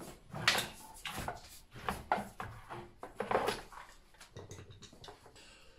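An old wall-mounted electrical box being yanked off a wall by hand, with a series of irregular cracks, knocks and scrapes as it tears free from its tight, corroded screws and its cable is pulled along with it.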